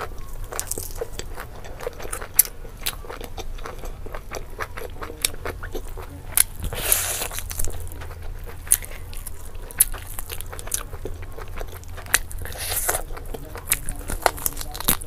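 Close-miked eating: biting, tearing and chewing meat off a piece of curried chicken, with many sharp wet mouth clicks and smacks. Two longer, louder bites come about halfway through and near the end.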